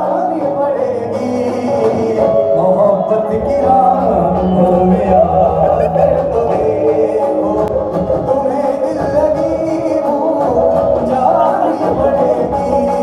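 Loud music: a song with a singing voice over instruments, playing steadily.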